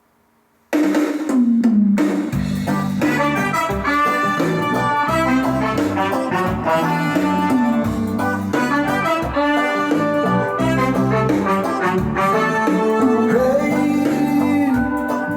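Instrumental intro of a reggae song, starting abruptly about a second in: brass lines over a steady bass pattern.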